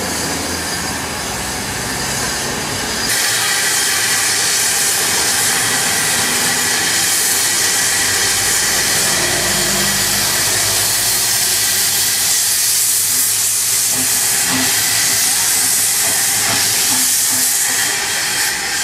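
Zillertalbahn narrow-gauge steam locomotive letting off steam: a loud, steady hiss starts about three seconds in and holds until near the end, over the low rumble of the engine.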